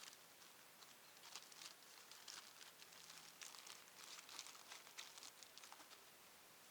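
Near silence with faint scattered rustling and crinkling clicks for a few seconds, dying away near the end.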